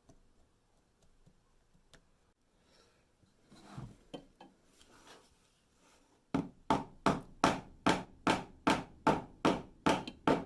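Faint scraping and handling, then a steady run of hammer blows on wood, about three a second, starting a little past the middle.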